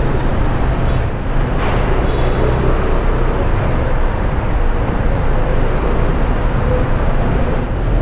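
Yamaha Aerox S 155 scooter's engine running steadily as it rides at low speed, with a continuous rumble of engine and road noise.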